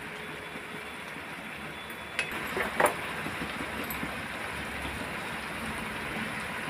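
Oil and masala paste sizzling steadily in a metal kadhai as ground spices are added, with two brief clinks about two and three seconds in.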